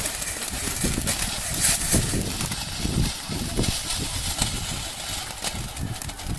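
Panda firework fountains spraying sparks: a steady rushing hiss with crackling pops, loudest about two seconds in, then dying down as the fountains burn out.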